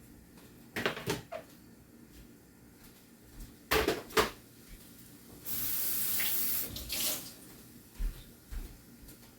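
Items being handled and set down: a few sharp knocks and clatters, with a steady hiss lasting a little over a second about halfway through.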